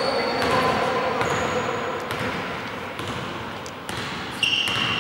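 A basketball being dribbled on a wooden gym floor, with scattered bounces and a few short high sneaker squeaks, echoing in a large indoor hall.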